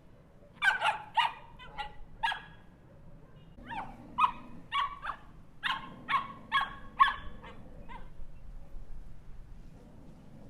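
Small dog barking in two quick runs of short, sharp, high barks, a handful in the first and about nine in the second, then stopping with about two seconds to go.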